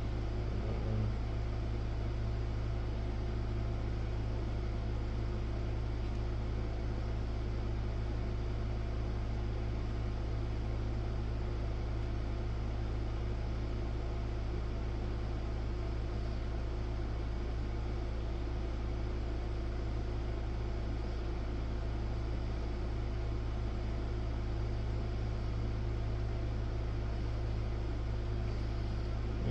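Steady low hum with a faint even hiss, unchanging.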